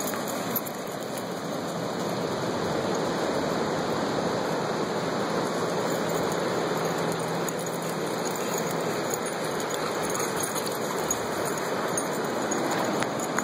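Ocean surf washing steadily onto the beach, a continuous rushing noise with no single breaking wave standing out.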